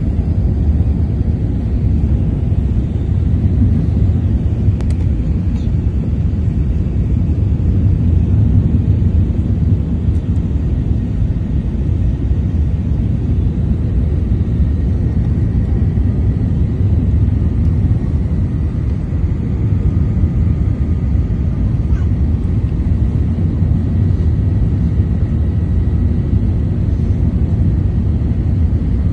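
Airliner cabin noise on the landing approach: the engines and rushing airflow make a steady low rumble heard from a window seat, with a faint thin whine coming in about halfway through.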